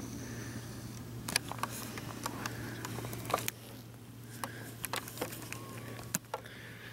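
Scattered light clicks, knocks and rustling of handling noise as the camera and gear are moved around in grass, over a steady low hum.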